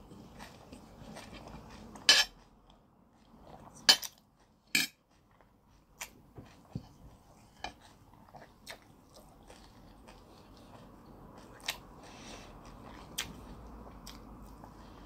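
Metal spoon clinking and scraping against a plate, with three sharp clinks about two, four and five seconds in, the loudest sounds here. Then softer, scattered clicks and chewing sounds up close.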